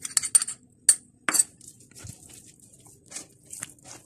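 A spoon clinks and scrapes against a small glass bowl as beaten egg is poured out, with one louder knock about a second and a half in. Softer wet clicks follow as a hand mixes the egg into spice-coated fish in a plastic tub.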